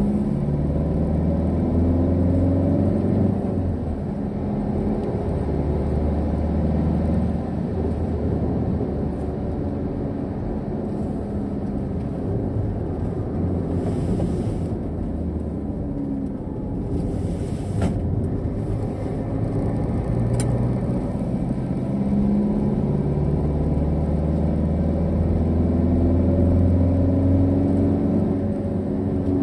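Car engine and road noise heard from inside the cabin while driving. The engine note climbs and drops several times as the car accelerates and changes gear.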